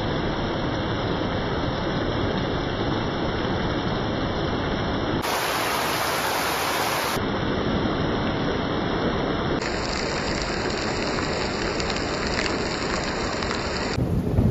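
Heavy rain falling steadily, drumming on corrugated metal roofs and streaming off the roof edges.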